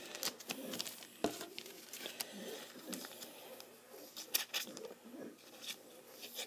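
Faint rustling of trading cards being handled, with scattered light clicks; a pair of sharper clicks comes a little after the middle.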